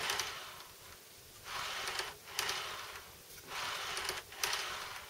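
Model railroad gondola car pushed back and forth by hand along the track, its wheels making a soft hissing roll over several passes of about a second each, with a few small clicks.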